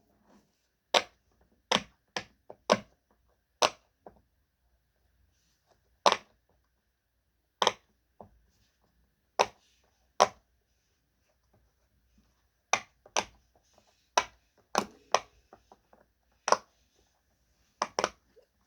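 Bubbles of a silicone push-pop fidget, a fries-shaped poppet, being pressed through one by one: sharp single pops at uneven intervals, some in quick pairs or runs, with quiet gaps between.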